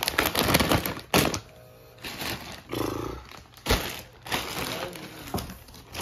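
Plastic snack packets and a thin plastic carrier bag crinkling and rustling as they are handled in a cardboard box, with a sharp thump about three-quarters of the way through as an item is set down.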